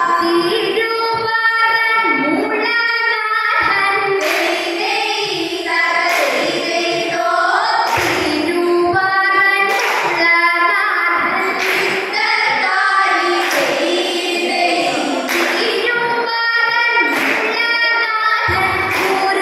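Vanjippattu, the Kerala boat song, sung by a group of girls' voices together, with a sharp beat marking the rhythm about every two seconds from about four seconds in.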